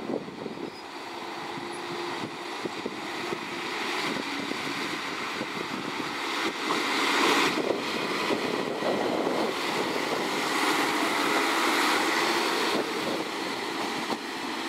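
Kashima Rinkai Railway 6000 series diesel railcar pulling out of the station, its engine running under power. It grows louder as the car approaches and passes close, loudest about halfway through, then eases slightly as it moves away.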